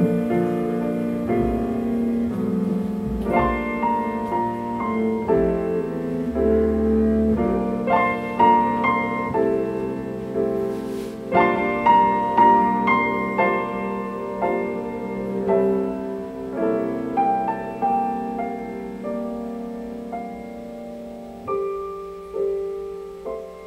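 Solo piano music played back through a 6V6 single-ended valve amplifier and horn loudspeakers, with struck notes ringing and decaying and the playing thinning out to sparse, quieter notes near the end.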